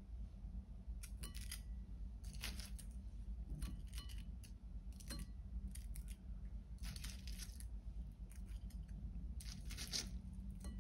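Chopsticks tapping against a ceramic bowl and crackling crispy breaded pork cutlet (tonkatsu) pieces as they are set on curry rice. The sounds come in short clusters of light clicks and crackles every second or two, over a steady low hum.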